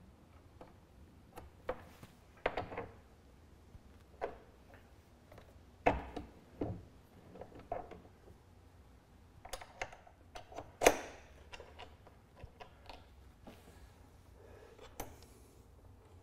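Light, irregular metal clicks and taps from handling a hinged bronze mast-partner collar: the collar is closed, and a clevis pin and wire retaining clip are fitted through its hinge. One sharper click comes about two-thirds of the way through.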